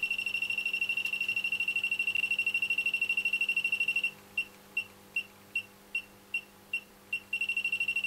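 Elitech WJL-6000 halogen leak detector beeping rapidly as it picks up R134a refrigerant from a very slow leak. About four seconds in, the beeping slows to separate beeps about two and a half a second, then speeds up again near the end.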